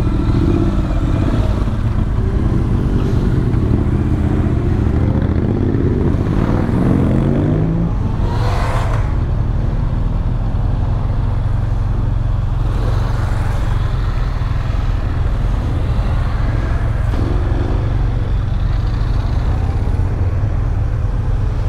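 Motorcycles riding past one after another over a steady low rumble. In the first several seconds one engine's pitch climbs as a bike accelerates away, and further bikes pass later.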